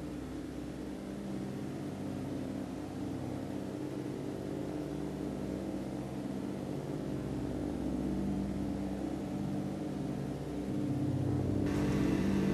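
A steady low drone of several held tones that slowly swells, with a hiss spreading in about three-quarters of a second before the end.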